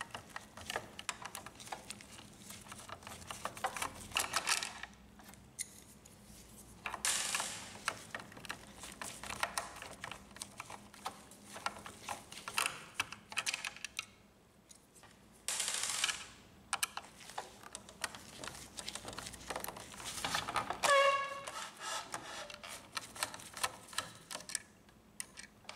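A screwdriver undoing the three screws of an Epson XP-2100 printhead: a run of faint light clicks and taps of metal tool on screw and plastic carriage, with two brief scraping rustles. A short squeak comes toward the end.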